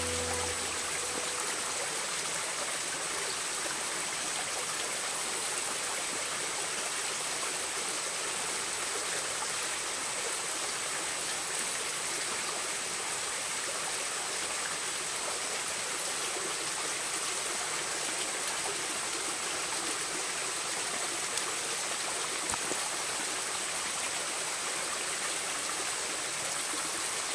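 A shallow jungle river flowing over rocks: a steady, even rush of water, with a thin, steady high tone running over it.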